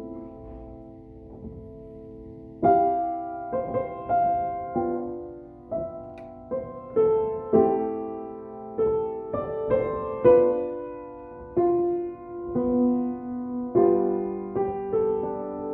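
Solo piano improvisation: slow chords and single notes struck one after another, each left to ring and fade. A held chord dies away first, and the playing picks up again about two and a half seconds in.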